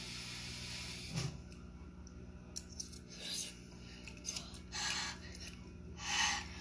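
A person eating very hot food: a soft knock about a second in, then several short breathy puffs, as of breathing out through the mouth to cool a burning mouthful.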